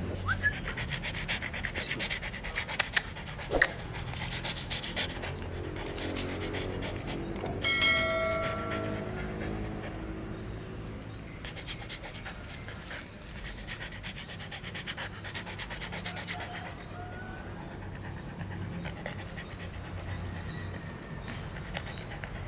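Beagle panting close to the microphone, with a few sharp clicks in the first few seconds and a short high tone about eight seconds in.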